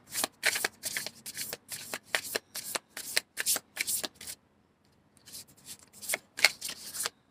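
Tarot cards being shuffled by hand: a quick run of short card slaps and rustles, about three a second, pausing briefly about four and a half seconds in before starting again.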